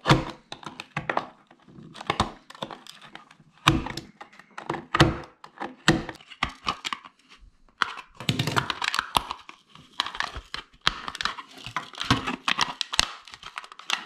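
A 3D-printed plastic part being cut with a utility knife and snipped with scissors, with many sharp, irregular cracks and snaps as trimmed pieces break away. The snapping grows denser in the second half.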